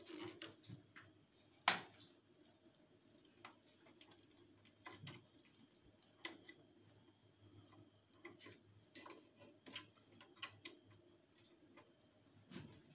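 Faint, irregular clicks and ticks of a small screwdriver and crimped wire lugs being worked into a solar inverter's output terminal block, with one sharper click a little under two seconds in. A faint steady low hum lies underneath.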